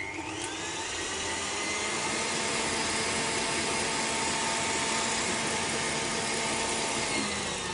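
KitchenAid Artisan stand mixer motor starting up and beating eggs with sugar in a steel bowl: its whine climbs in pitch over the first second as it comes up to speed, runs steadily, then drops in pitch near the end as it slows.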